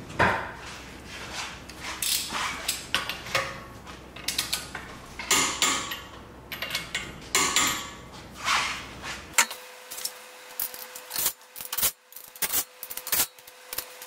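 Ratchet wrench clicking in repeated strokes, with metal tool clinks, as a front axle nut is tightened to factory torque.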